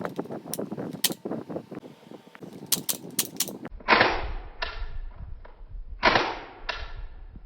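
Toy Colt 1911 shell-ejecting pistol: a quick run of sharp plastic clicks and snaps, then four sharp shots in two pairs, each pair about half a second apart.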